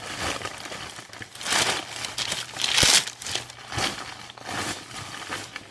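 Plastic packaging wrap crinkling and rustling in uneven bursts as it is pulled off and handled, loudest about three seconds in, with one sharp knock at that point.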